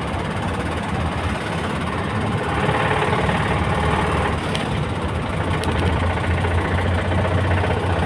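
GAZelle light truck's engine running on the move with a steady heavy rumble and knocking rattle. The engine was damaged when the throttle stuck wide open under load.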